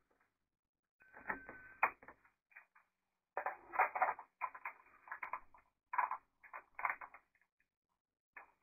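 Irregular clicks, knocks and clatter of small objects and gadgets being handled and set down on a kitchen worktop, with a brief steady high tone a little after a second in.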